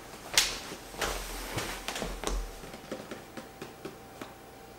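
A man sitting down on a wooden chair: a sharp click, a scuffing shuffle and low bumps as the chair takes his weight, then a run of small taps and rustles as he settles.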